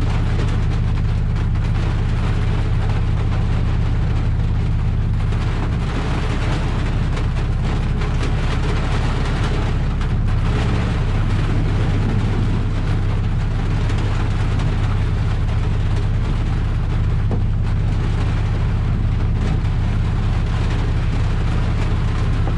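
Honda Integra DC5's four-cylinder engine running steadily at speed, its note shifting about 6 and 11 seconds in, over a steady hiss of heavy rain and tyre spray.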